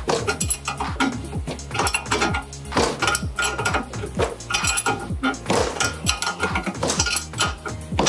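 Repeated metallic clinks and clicks from a combination wrench working the forcing bolt of a ball joint puller clamped on the front steering knuckle; the ball joint taper is seized and has not yet broken free. Background music with a steady beat plays underneath.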